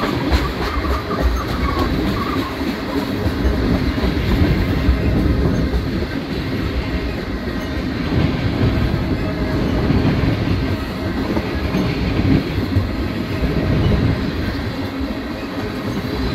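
Freight train tank cars rolling past close by: a steady rumble of steel wheels on rail, with the clickety-clack of the wheels.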